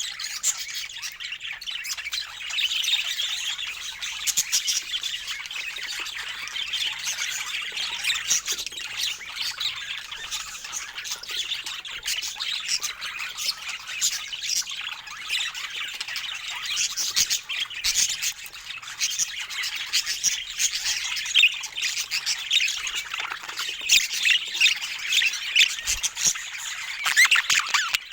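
Budgerigars chattering and squawking continuously, many short calls overlapping without a break.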